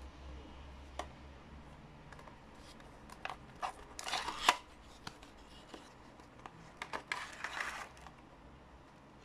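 Small cardboard box and its paper insert handled and opened by hand: cardboard and paper rustling and scraping with a few light clicks, in two busier stretches about four seconds in and again about seven seconds in.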